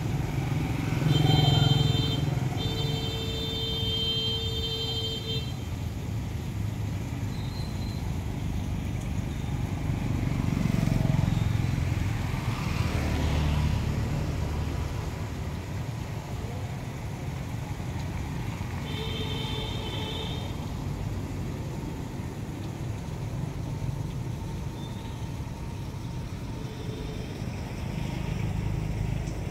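Street traffic on a wet road: motorbikes and a car pass, their engine and tyre noise swelling and fading. A steady high tone sounds near the start, first briefly and then for about three seconds, and once more briefly about two-thirds of the way through.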